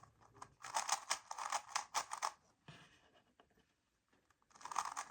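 Plastic puzzle cube being turned by hand: quick, clattering clicks of its layers in two runs, from about a second in and again near the end, with a quiet pause between.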